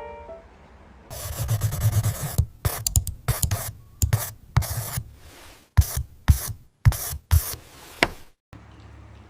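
A series of rubbing strokes that starts about a second in, comes quickly at first and then settles to about two strokes a second, stopping after a last sharp stroke near the end.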